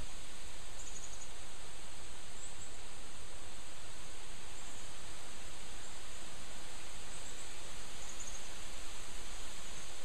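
Steady rustling hiss of wind through tree leaves, with a few faint high chirps now and then.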